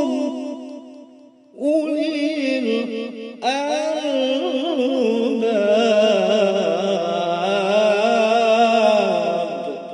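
Arabic devotional chanting: voices singing long, wavering held notes. The chant dips away about a second in, comes back in about half a second later, swells fuller near the middle, and fades out at the end.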